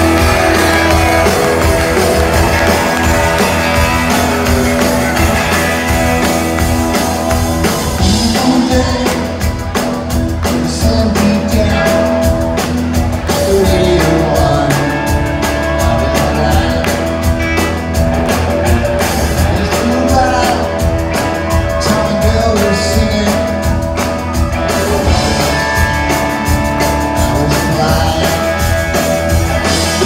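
Live rock band playing loudly through a hall PA, heard from the audience: electric guitars, drum kit and keyboard, with a singing voice.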